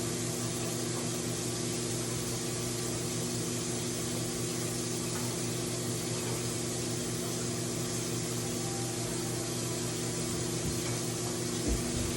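Flour-coated chicken wings frying in hot oil in a pan: a steady, even sizzle, over a steady low hum.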